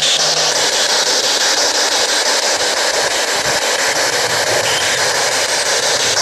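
P-SB11 spirit box putting out loud, steady radio static with a fast, even stutter as it sweeps through radio frequencies.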